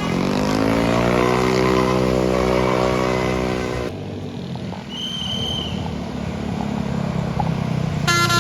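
A bus engine revving up, its pitch rising and then holding, which cuts off abruptly about four seconds in. A short high beep follows, and near the end a multi-note telolet basuri horn begins playing a tune.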